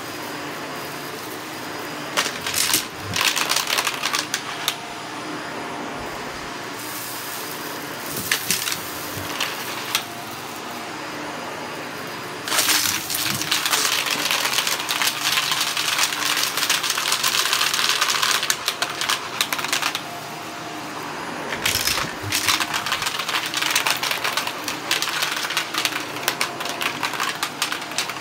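Shark vacuum cleaner running on carpet, its motor a steady hum. Long stretches of rapid clicking and rattling come through, the busiest a little under halfway in and again near the end.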